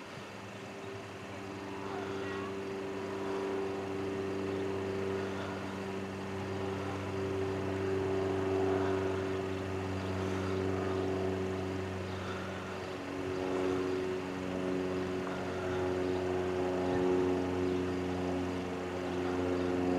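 Diesel locomotive engine running with a steady low drone, growing louder as the slow-moving train approaches; the pitch of the drone shifts slightly about two-thirds of the way through.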